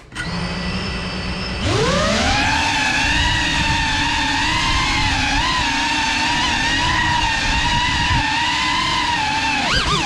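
GEPRC Cinelog 35 cinewhoop's four brushless motors and ducted propellers: a low hum at idle, then a sharp rising whine as the quad spools up and takes off about two seconds in. The whine then holds steady, wavering slightly in pitch with throttle, and briefly drops and swoops back up near the end.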